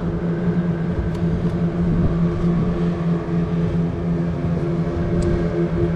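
A steady engine hum, a constant low drone with no change in pitch.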